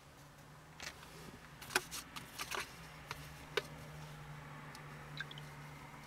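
Handling noise close to the microphone: several sharp clicks and short rustles, bunched in the first four seconds with one more near the end, over a steady low hum.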